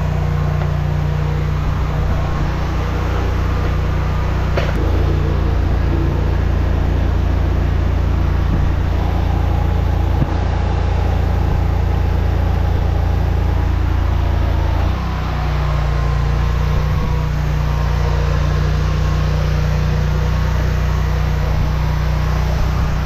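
High-pressure drain jetter running steadily, its engine note swelling about five seconds in and dropping back about fifteen seconds in, with water rushing as the jetting hose works inside the drain. Water pours back out of the open inspection riser as the blocked line fills.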